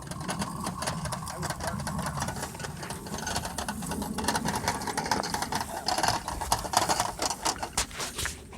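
Geared hand winder cranking, winding up the twisted rubber motor of a free-flight model airplane: a fast, even run of clicks that stops near the end.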